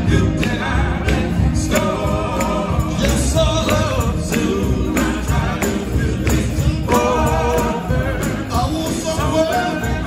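Male gospel group singing live, backed by electric guitars and drums keeping a steady beat.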